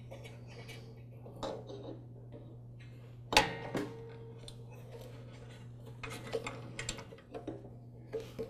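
Metal clinks and knocks as a steel transmission pulley with its drive belts looped on is handled and fitted back into a Troy-Bilt Super Bronco tiller. One sharp clank with a short ring comes about three and a half seconds in, the loudest, with a few lighter clicks near the end, over a steady low hum.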